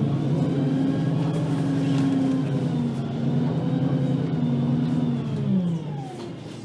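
VDL Citea LLE-120 city bus engine pulling under load, its pitch holding high with small dips along the way. About five and a half seconds in the revs fall away and the sound drops as the bus eases off.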